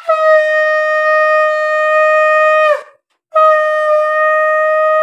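Conch shell (shankha) blown in two long, steady blasts for the evening prayer: the first dips in pitch as it dies away a little under three seconds in, and the second starts after a short breath.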